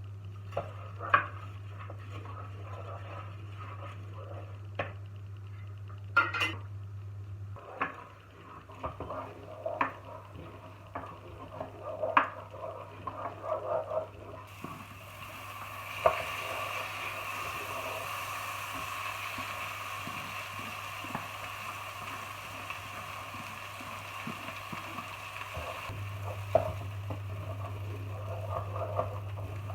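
Kitchen cooking sounds: utensils clinking and knocking against pots and dishes, then from about halfway a steady sizzle of food frying in a pan, over a low hum.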